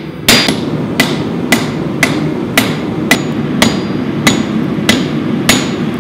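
Hand hammer striking a red-hot O1 steel knife blank on a steel anvil, about ten even blows at roughly two a second, each with a short metallic ring, as the blade is flattened and shaped. A steady low rumble runs underneath.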